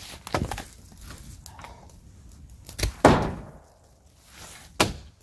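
Old weathered wooden boards being knocked and pried loose from a collapsed hut: four sharp knocks of wood, the loudest about three seconds in with a short noisy tail.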